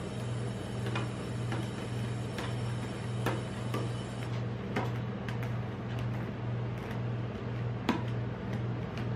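Metal spatulas tapping and scraping on the steel cold plate of a rolled-ice-cream pan as ice cream is spread flat: irregular sharp clicks, a few seconds apart, over a steady low hum.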